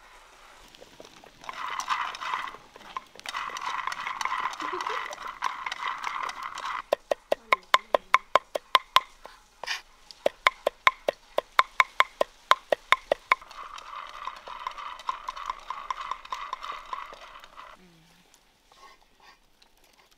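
Kitchen knife chopping on a wooden cutting board, a steady run of sharp strokes about three a second. Before and after it come stretches of a steady buzzing noise.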